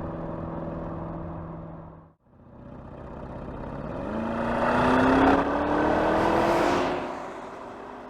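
Porsche Cayenne twin-turbo V8 on track. A steady engine note cuts off abruptly. Then the car accelerates toward and past the microphone, its engine note rising in pitch, loudest for a couple of seconds in the middle, and fading away.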